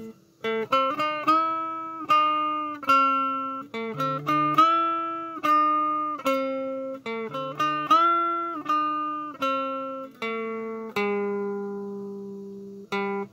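Small electric guitar played through a TDA2030 chip amplifier kit and speaker: a slow run of single picked notes, each fading after it is struck. The last note rings on and fades away near the end.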